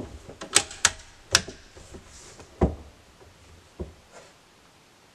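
Sharp metallic clicks from an Anschütz 1416 .22 LR bolt-action rifle being handled, a handful in the first second and a half, then two duller knocks about a second apart.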